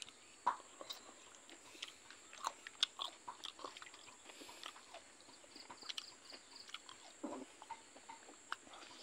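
A person chewing a mouthful of cooked silkworms and rice with the mouth close to the microphone: irregular small clicks and crunches of eating.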